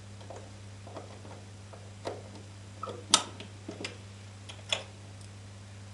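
Scattered short clicks and light knocks from a Master Lock 5401 combination key storage box being handled, about eight at uneven spacing, the sharpest about three seconds in. A steady low hum runs underneath.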